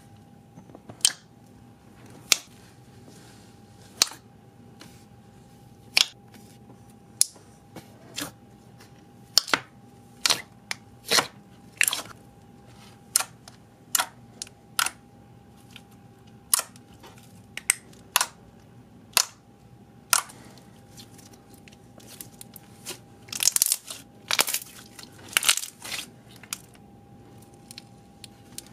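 Fingers poking and pressing thick, glossy slime, making sharp wet clicks and pops about once a second, with a denser run of crackling pops near the end.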